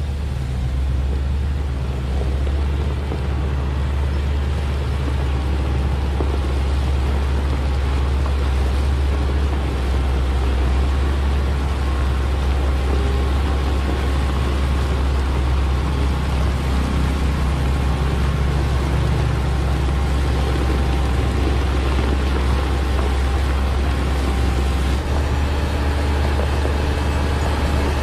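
Caterpillar 120 motor grader's diesel engine running steadily with a strong low drone, as its blade spreads and levels gravel aggregate, with the grinding of stones under the blade.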